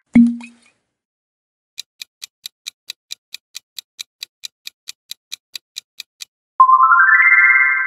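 Quiz-show sound effects: a short low pop, then a clock-style countdown ticking about four to five times a second for some four and a half seconds, then a bright ringing chime near the end as the answer is revealed.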